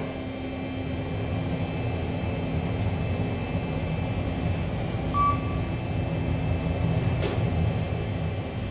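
KONE EcoDisc traction elevator car travelling up: a steady low rumble of the ride with a constant hum from the drive. A sharp click right at the start, a short beep about five seconds in, and another click about seven seconds in.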